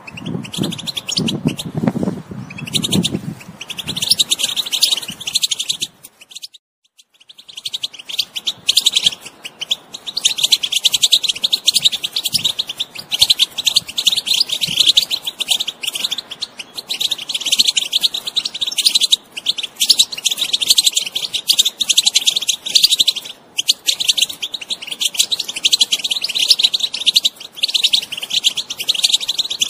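European goldfinch song: a fast, continuous run of twittering and chattering notes, broken by a short silence about six seconds in. A low pulsing sound sits underneath in the first few seconds.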